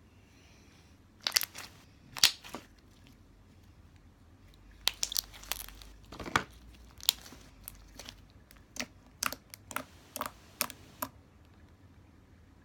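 Thick glossy slime being stretched, folded and pressed by hand, giving sharp pops and crackles in scattered clusters with quiet gaps between. The pops stop about a second before the end.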